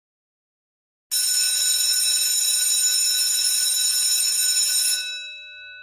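An electric bell, like a school bell, ringing continuously with a loud metallic clatter, starting about a second in and cutting off abruptly near the end, its gong then ringing out and fading.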